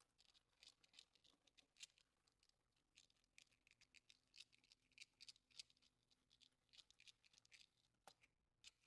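Faint, quick scratchy strokes of a cleaning brush scrubbing over computer keyboard keys, several strokes a second.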